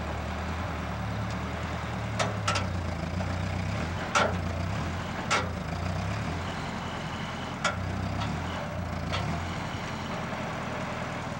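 Ford 8N tractor's four-cylinder engine running steadily under load while pulling a plow through the soil. About six sharp knocks stand out over the engine here and there.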